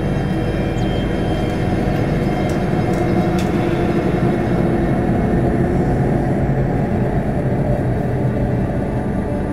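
A loud, steady low rumble, dense and mechanical, with a few faint high ticks a few seconds in.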